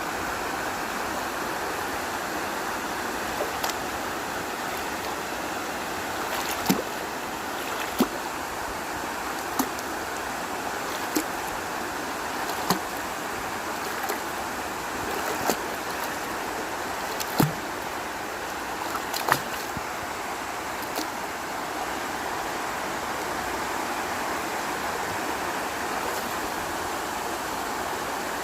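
Waterfall in a mountain stream, water falling and rushing in a steady rush, with a scattering of short sharp clicks through the middle of it.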